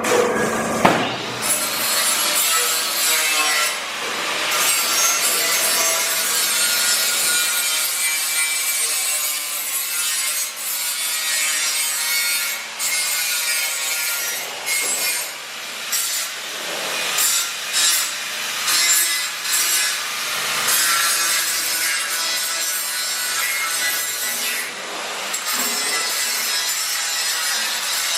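Metal being cut: a continuous harsh rasping noise that rises and falls irregularly.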